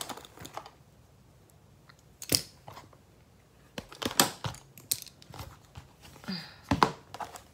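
Irregular clicks and taps of small hard makeup items being picked up, handled and set down, with short quiet gaps between.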